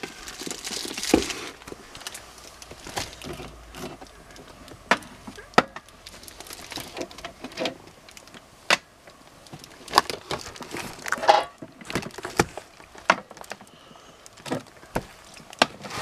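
Irregular clicks, knocks and rustling of objects being handled and moved about, with no steady sound.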